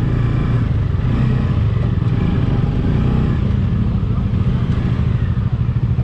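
Bajaj Dominar 400's single-cylinder engine running at low revs as the motorcycle rolls slowly over a rough, broken road: a steady low rumble. In the last second or so it turns to an uneven putter as the bike slows.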